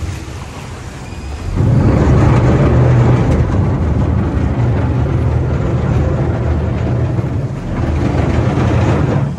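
Water-bus diesel engine running with a steady low hum and water churning, growing much louder about a second and a half in as the boat manoeuvres alongside a landing stage, and easing off at the very end.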